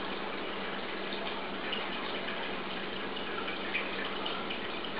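A steady stream of running water, even and unbroken, with a faint low steady hum beneath it.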